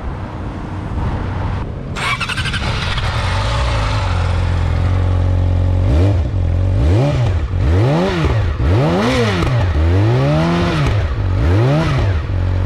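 Yamaha YZF-R6's inline-four engine, a conventional-crank four rather than a crossplane, idling steadily. About six seconds in it is revved in about six quick throttle blips, each rising in pitch and falling back to idle, then it settles back to idle near the end.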